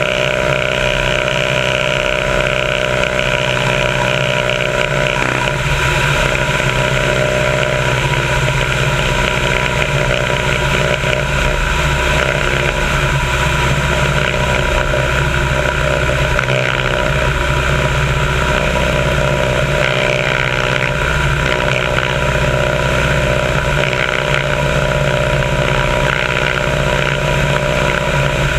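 Biplane's engine running steadily at cruise power in flight, heard from a wing-mounted camera with the rush of the slipstream over the microphone. The pitch holds even throughout.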